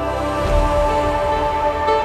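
Background music: sustained, calm pitched tones.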